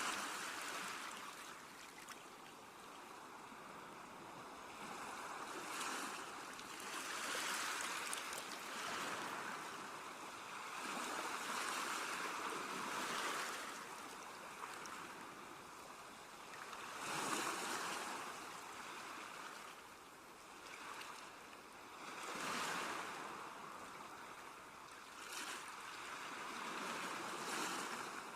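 Sea waves breaking on the shore: a steady hiss of surf that swells into a rush about every five seconds and then falls back.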